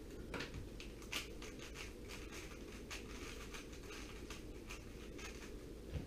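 Speedcube being turned by hand: quick, irregular plastic clicks of the layers, several a second.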